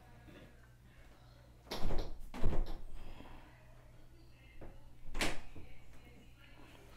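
A door being shut and handled: a short cluster of knocks and thumps about two seconds in, then one sharp knock a few seconds later.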